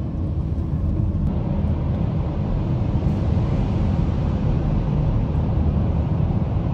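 Steady road and engine drone inside the cabin of a BMW X5M (E70) cruising at a constant speed, with its 4.4-litre twin-turbo V8 under light load.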